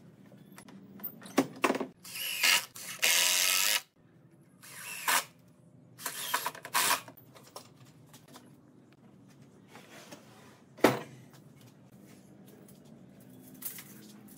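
Steel pipe clamps being loosened and taken off a wooden frame: clicks from the clamp jaws, several short scrapes of metal sliding, and one sharp knock about eleven seconds in.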